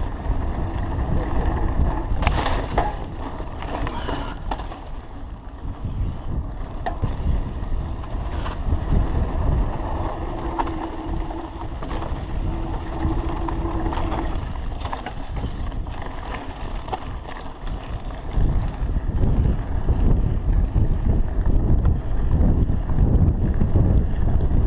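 Wind rushing over the microphone of a bike-mounted action camera as a mountain bike rolls down a dirt singletrack, with tyre rumble and knocks and rattles as the bike goes over bumps. The rush gets louder about 18 seconds in.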